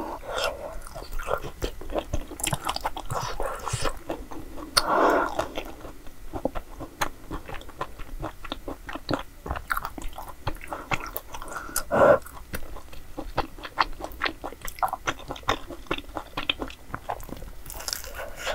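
A person biting and chewing a Korean dessert, with crunchy bites and many small clicks and smacks from the mouth; a louder bite stands out about twelve seconds in.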